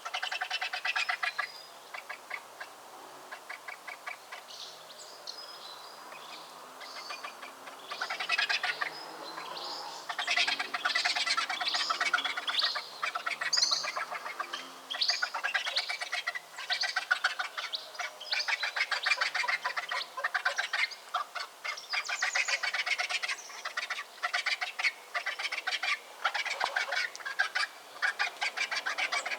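Vultures calling in rapid, overlapping chattering calls, with higher squeals mixed in. The calls are sparser at first and thicken into a dense din about eight seconds in.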